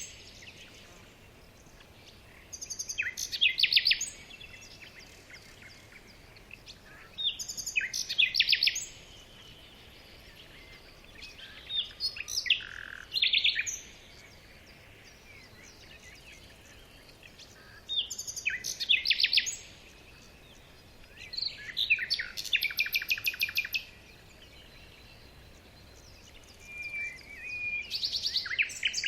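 A bird singing short, rapidly pulsed, trilling phrases, about six of them, each a second or two long and repeated every four to five seconds.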